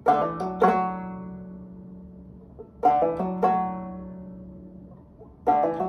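Open-back banjo in double C tuning, capoed, played clawhammer style: a quick lick, a triple hammer-on off a single strike, played twice, each time left to ring and fade. A third run begins near the end.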